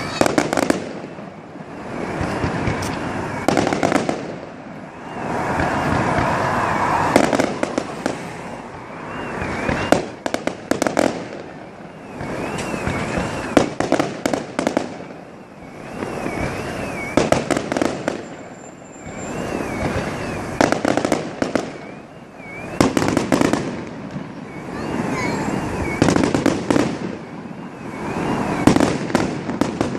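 Fireworks display: clusters of sharp bangs and rapid crackling from bursting shells, swelling every few seconds, with a faint warbling whistle running through much of it.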